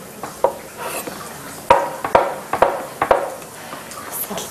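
A cleaver chopping tofu on a wooden cutting board: a handful of sharp, uneven knocks of the blade against the board, bunched in the middle.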